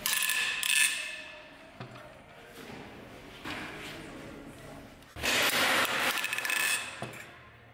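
A long-handled ratchet wrench loosening the cylinder head bolts on a 2.4-litre G4KE petrol engine: metallic ratcheting and scraping in three bursts, the last and longest about five seconds in.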